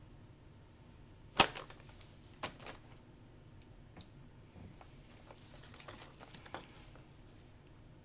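Quiet handling noise as a jersey is looked over: a sharp click about a second and a half in, a smaller one about a second later, then faint scattered ticks and rustling.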